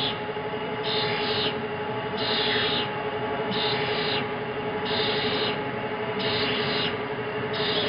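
Winslomatic HC drill grinder grinding a drill point: a steady motor hum under a rasping grinding stroke that comes back about every 1.3 seconds, six times, as the drill is fed into the wheel.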